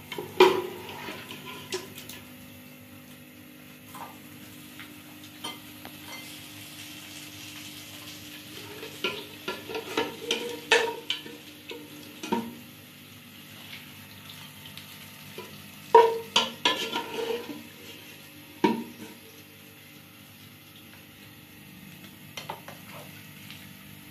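Metal ladle scraping and clinking against an aluminium pot and a ceramic bowl as pieces of boiled mutton are scooped out and dropped in. The clinks come in bunches: once about a second in, again from about nine to thirteen seconds, and from sixteen to nineteen seconds. A faint steady hiss runs underneath.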